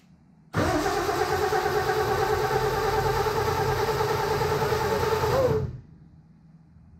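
Starter motor cranking the 1937 Terraplane's flathead straight-six for about five seconds, with a steady whine over a rhythmic chug, then cutting off; the engine turns over without catching as fuel is drawn up from a new fuel pump.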